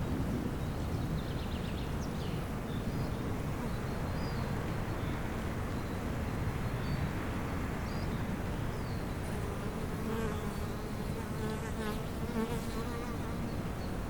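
A bee buzzing close by, its steady hum coming in about two-thirds of the way through. Underneath is a steady outdoor background, with faint bird calls.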